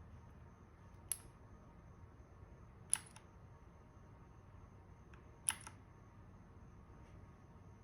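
Three single key clicks on a mechanical keyboard, a couple of seconds apart, over faint room tone.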